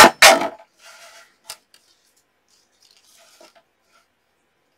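Two loud clacks in quick succession from a deckle paper trimmer as it is worked on a stack of paper strips, followed by faint paper rustling, a small click and light scraping.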